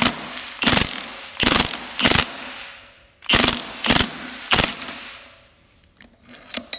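Impact wrench hammering in short bursts, about seven in four and a half seconds, then stopping. It is driving the forcing screw of a lengthened bearing puller to pull a bearing off a gearbox shaft.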